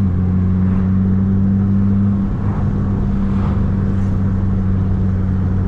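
Chevrolet Corsa 1.4 four-cylinder engine through a sport exhaust with aftermarket intermediate and rear mufflers, droning at steady revs with a deep resonance inside the cabin. The pitch dips slightly about two seconds in.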